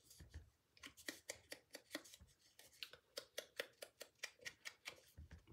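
Faint, quick, even tapping of an ink sponge dauber dabbed onto cardstock, about six taps a second.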